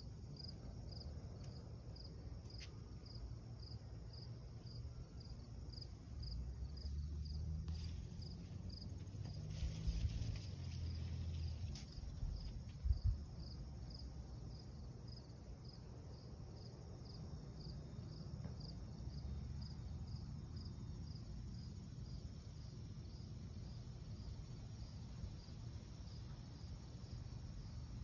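A cricket chirping steadily at night, evenly about twice a second in a high pitch. Low rumbling handling noise on the phone's microphone comes in between about six and thirteen seconds in, with a couple of bumps, the loudest near the end of that stretch.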